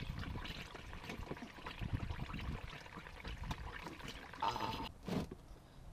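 Hot engine oil draining from a Nissan 350Z's oil pan and splashing into a drain pan, an uneven spattering pour.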